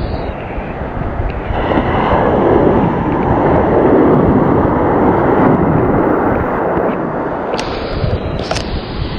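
Rough surf breaking and white water rushing close to the microphone, a loud rumbling wash that swells to a peak in the middle and eases off, with a couple of sharp clicks near the end.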